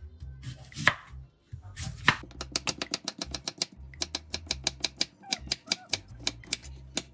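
Chef's knife chopping Korean radish on a wooden cutting board: a few separate knocks, then from about two seconds in a fast, even run of chops, about seven a second, as stacked slices are cut into matchsticks. Background music underneath.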